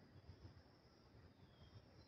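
Near silence: a faint, uneven low rumble with a faint steady high hiss.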